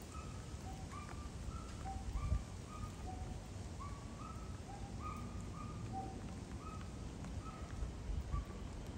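Birds calling in short, clear notes repeated two or three times a second at a couple of pitches, over a low background rumble.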